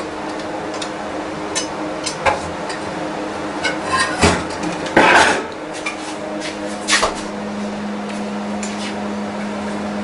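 Pliers working on a cooler fan motor: a few sharp metallic clicks and knocks at uneven intervals, one with a brief scrape, over a steady low hum.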